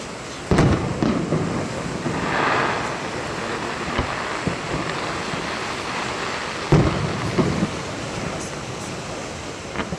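Fireworks display heard from afar: aerial shells bursting with booms, two loud ones about six seconds apart and a few softer thuds between, over a steady background hiss.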